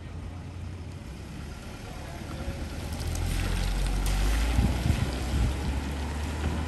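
Volvo 940 estate car's engine running as the car pulls away and drives past at low speed, a steady low hum that grows louder about three seconds in and eases off a little as it moves away.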